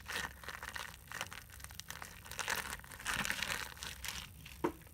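Plastic bag crinkling and crackling as a jiggly clear slime is squeezed and played with inside it, in two busier spells, near the start and again around three seconds in.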